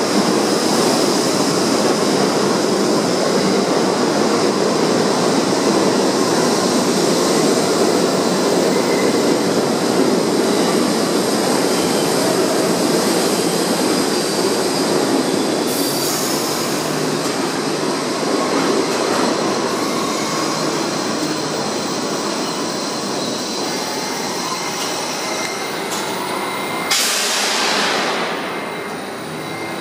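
R68 subway train pulling into a station and braking to a stop: a steady rumble of wheels on rail with a high wheel squeal, slowly fading as it slows. Near the end comes a sudden loud hiss that dies away over a couple of seconds.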